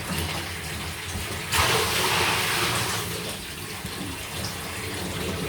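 Water running from a tap into a bath, with a louder gush coming in suddenly about a second and a half in as the tap is opened, then easing off over the next couple of seconds.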